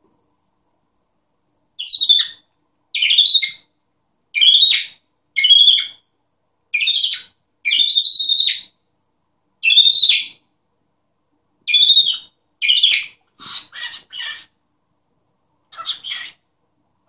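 A cockatiel vocalizing: a string of about a dozen short, shrill calls, roughly one a second, growing softer near the end.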